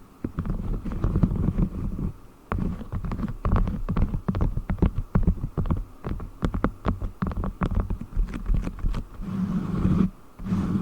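Beeswax sheet handled close to the microphone for ASMR: muffled rubbing and squeezing, with a quick run of sharp crackles and clicks through the middle.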